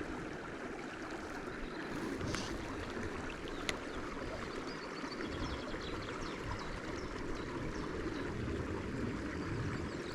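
Small river running over stones: a steady rushing and babbling of water, with one brief sharp click a little under four seconds in.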